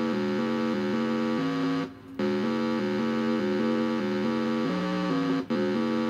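Arduino Nano digital-oscillator noise maker playing a rapid, repeating run of electronic notes that steps in pitch about five times a second. The sound cuts out briefly twice.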